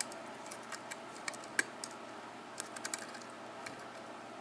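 Faint, irregular small metallic clicks and ticks of a lock pick working the pin stacks of a 6-pin KIK lock cylinder under light tension, with one sharper click about one and a half seconds in. The picker is trying to set pin 6, the last pin before the lock opens.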